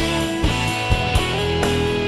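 Background rock music with guitar over a steady beat of about two strokes a second.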